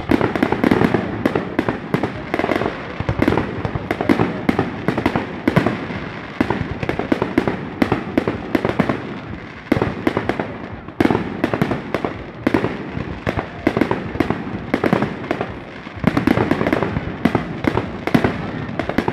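Aerial fireworks display: a dense, rapid run of shell bursts, several sharp bangs a second, thinning briefly a couple of times.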